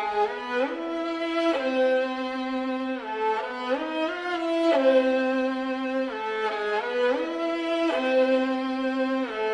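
Background music: a violin-like bowed string playing a slow melody, holding each note for about a second and sliding smoothly between notes.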